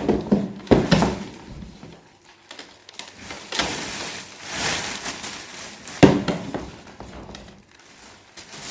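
Knocks and rustling as a guinea pig cage is cleared out: sharp knocks in the first second, a stretch of rustling in the middle and one hard knock near the end.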